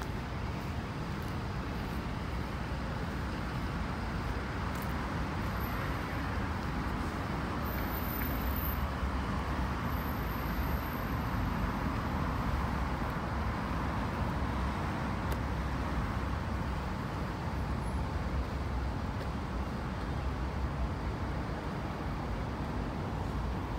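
Steady road traffic noise, a wash of passing vehicles that swells slightly in the middle.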